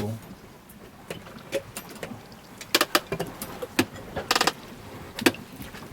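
A few separate clinks and clatters of utensils against dishes. The loudest, a little after four seconds in, rings briefly.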